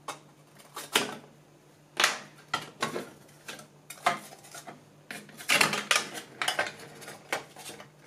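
Sheet-metal cover of a 360 W 12 V switch-mode power supply being cut free at its sticker and lifted open: a series of light metallic clinks and scrapes, loudest about two seconds in and again five to six seconds in.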